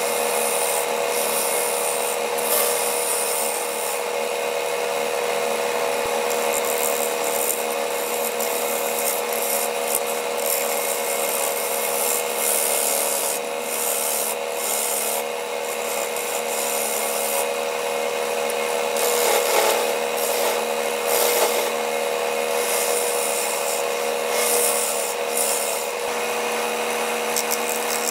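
Turning tool cutting a spinning walnut bowl on a Grizzly wood lathe: a steady scraping hiss of the cut over the lathe motor's even hum, a little louder about two-thirds of the way through.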